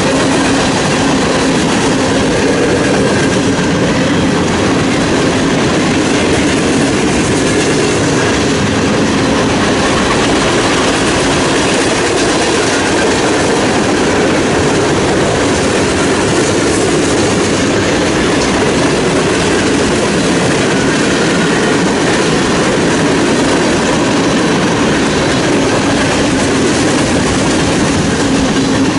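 Freight cars of a long mixed manifest train (tank cars, boxcars, covered hoppers) rolling past at speed, their steel wheels clattering and rumbling steadily and loudly on the rails.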